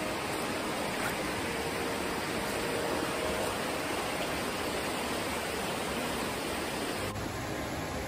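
Steady rush of a waterfall, an even hiss of falling water.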